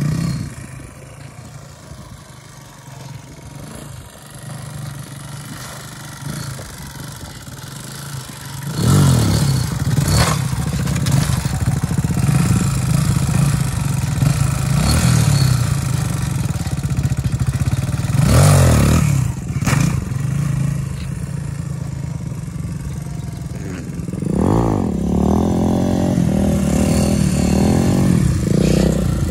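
Motorcycle engine, quieter at first, then loud and close from about nine seconds in: idling with repeated sharp throttle blips that rise and fall in pitch.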